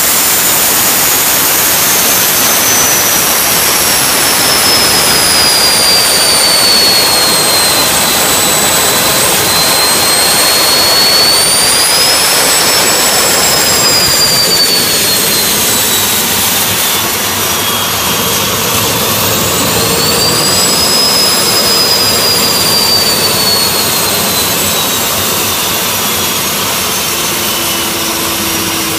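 Lockheed L-1011 TriStar APU, a Pratt & Whitney ST6L-73 twin-shaft gas turbine derived from the PT6, running loud: a steady rushing roar under a high turbine whine. The whine slides down, rises twice and sinks again as the engine's speed changes.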